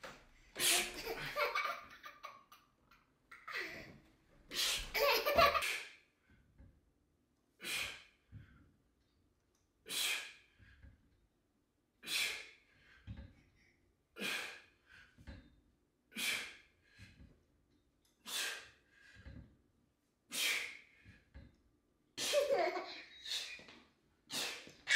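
A man's sharp breaths out, about every two seconds, as he exercises. Bursts of laughter come in the first few seconds and again near the end.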